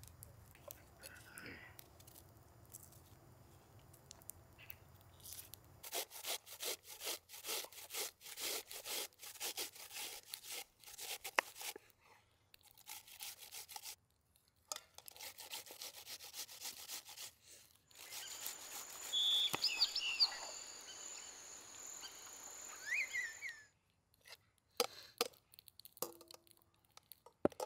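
Food-preparation sounds in short edited segments: a run of quick, evenly repeated cutting or scraping strokes, then a steadier rubbing with a few short high chirps.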